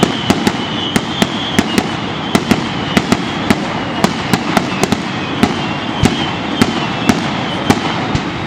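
Aerial fireworks bursting in quick, irregular succession: sharp bangs and crackles about three a second over a continuous crackling din.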